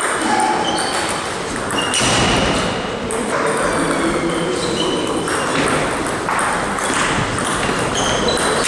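Table tennis balls clicking off bats and table tops in quick, irregular succession during rallies, with strokes from neighbouring tables overlapping in a large, echoing hall.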